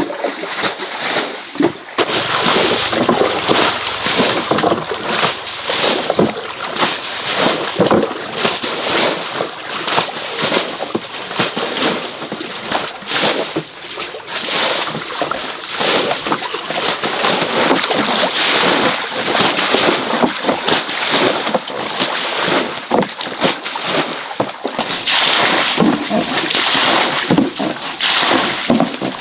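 Water splashing and sloshing without pause, in many short irregular splashes, as of someone working through shallow stream water. A faint steady high tone joins near the end.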